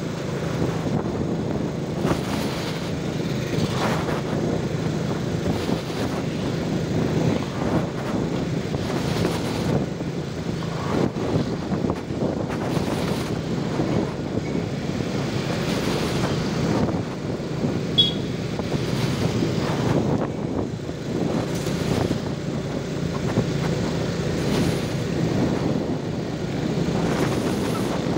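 Small motorbike engine running steadily at riding speed, heard from the rider's seat with wind and tyre noise and other motorbikes in traffic around. A short high-pitched chirp about eighteen seconds in.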